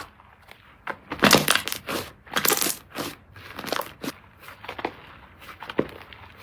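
Slime being squeezed and pressed by hand, making an irregular run of crackles and pops, heaviest from about one to three seconds in.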